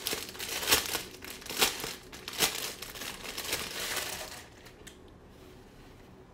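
Thin clear plastic bag crinkling and crackling as a satin bonnet is pulled out of it, with several sharp, loud crackles in the first two and a half seconds; the rustling dies down after about four seconds.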